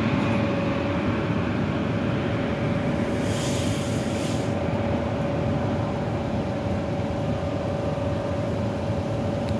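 A jet airliner on final approach, its engine rumble slowly fading as it moves away toward the runway, with a steady whine. A short hiss comes about three seconds in.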